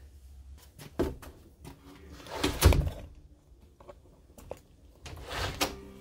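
Door hardware being worked: a brass doorknob turning and a freshly replaced spring latch clicking in and out, with a loud knock of the door against its frame about two and a half seconds in and several lighter clicks around it.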